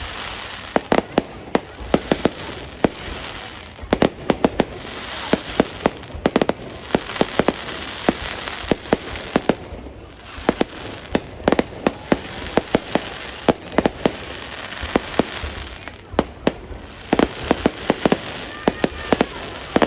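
Fireworks going off: many sharp bangs in quick succession over dense crackling, coming in surges several seconds long with brief lulls between them.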